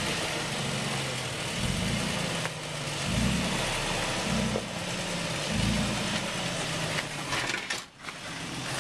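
Toyota Tacoma pickup's engine running at low speed, revving up in about five short surges as the truck crawls its front tire over wet rock ledges.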